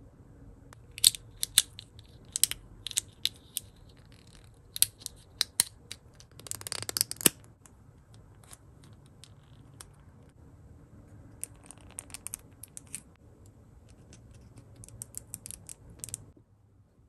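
Small hard-plastic doll and its snap-on accessories being handled: sharp plastic clicks and taps as shoes and clothes are pressed on, in scattered clusters, with a denser run of clicking and rubbing about seven seconds in.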